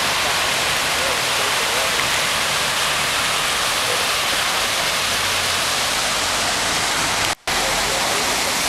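A steady, even rushing noise throughout, with faint voices underneath. It drops out for a moment about seven seconds in.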